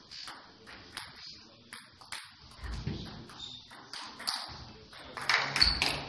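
Table tennis ball clicking against the table and the bats in irregular ticks during a rally, with a hall echo. Near the end there is a brief loud voice, louder than the ball strikes.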